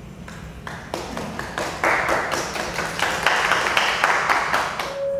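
A small audience applauding. It starts with a few scattered claps, builds to fuller applause about two seconds in, then stops near the end.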